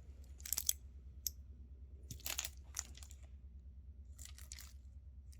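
Faint, scattered clicks and rustles of costume jewelry being handled, about half a dozen over a few seconds: acrylic beads of a necklace clicking against each other.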